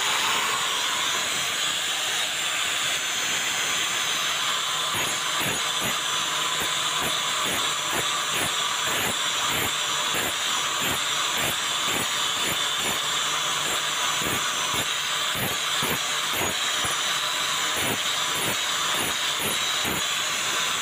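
Angle grinder spinning up and running with a steady high whine, its abrasive disc grinding rust off the steel blade of an old hoe. From about five seconds in there are regular ticks, roughly twice a second, as the disc catches the work.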